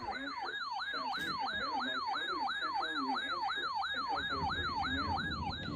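Electronic alert siren from a weather-alert receiver, a tone sweeping down in pitch and jumping back up over and over, about three and a half sweeps a second.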